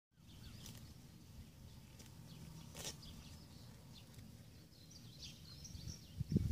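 Faint chirping of small songbirds over a low background rumble, which grows louder near the end.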